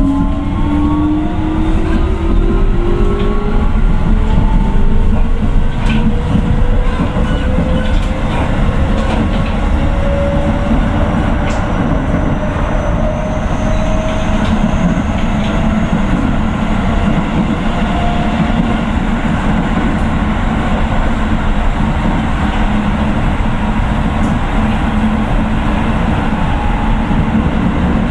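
Keio 9000 series train's Hitachi IGBT inverter traction motors whining with a slowly rising pitch as the train accelerates. The whine fades out about halfway through, leaving steady wheel-on-rail running noise with occasional clicks from rail joints, heard from inside the car.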